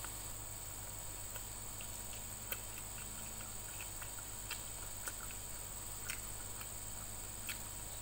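Faint clicks and smacks of someone chewing fried chicken eaten by hand, a handful of scattered soft clicks over a steady background hum and hiss.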